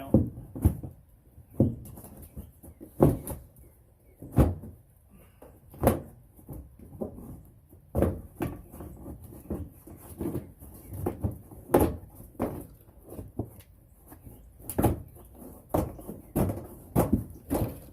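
Irregular knocks, clicks and clunks of hands-on work under the truck, beginning as a fastened plastic panel is flexed and pulled out.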